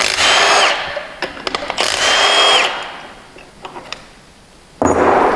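A Milwaukee Fuel brushless cordless tool (impact wrench or ratchet) spinning the bearing cap bolts off a Dana 30 differential carrier. It runs in three short bursts with a steady high motor whine, and there are a few light metal clicks between the bursts.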